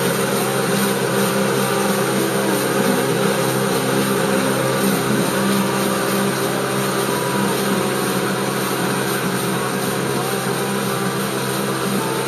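Kubota SR-J5 combine harvester running steadily while cutting rice: a constant engine drone with several held tones from the engine and threshing machinery.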